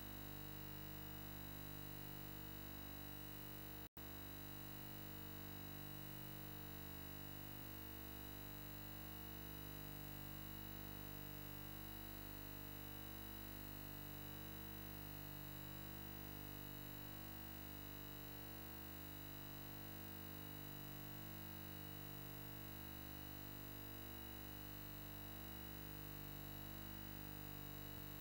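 A steady droning hum made of many even tones, pulsing slowly about every two seconds, with a split-second dropout about four seconds in.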